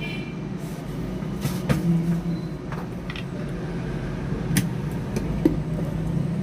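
Hot air rework station blowing steadily at low airflow while desoldering a broken charging jack from a phone's circuit board, with a few sharp clicks of metal tools on the board.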